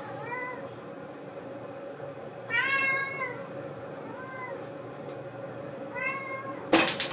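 A house cat meowing four times, drawn-out rising-and-falling cries, the second the longest and loudest: the cat demanding its food. Near the end a fast run of loud sharp knocks begins.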